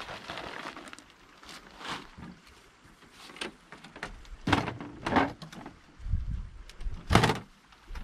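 Folding camping table being taken from its fabric bag and set up: the bag rustles briefly, then its metal legs and frame give a series of clicks and knocks as they swing out and lock. The loudest knock comes about seven seconds in, as the table is stood up.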